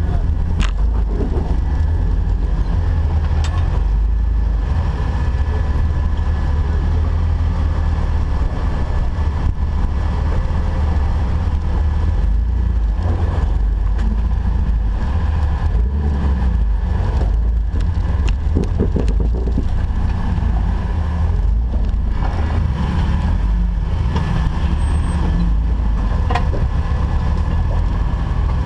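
Off-road Jeep driving slowly: a steady, heavy low rumble of engine and drivetrain, with occasional sharp clicks and knocks.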